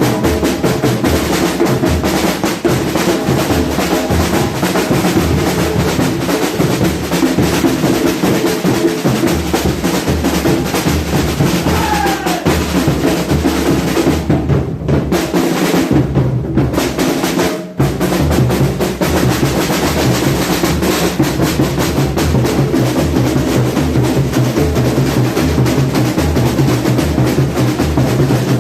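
A samba bateria (batucada drum section) playing a continuous driving groove: deep bass-drum beats under rolling snare drums, with a momentary break a little past halfway.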